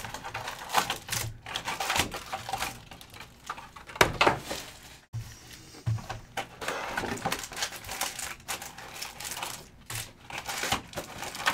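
2022 Optic NFL hobby trading-card packs being taken out of their cardboard box and stacked by hand: irregular rustling and light clicks of the wrappers, with one louder knock about four seconds in.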